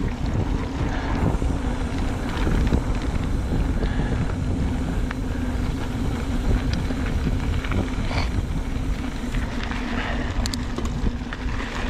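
Mountain bike descending a dirt trail: wind on the microphone and tyres rolling over the ground, with a steady hum and scattered rattles and clicks.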